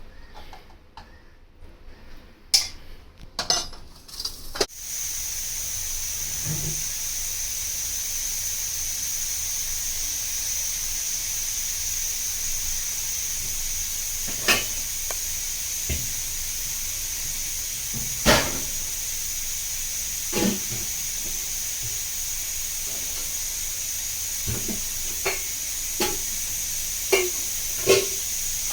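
Steady hiss from food cooking on the gas stove, starting suddenly about five seconds in, with utensils knocking now and then.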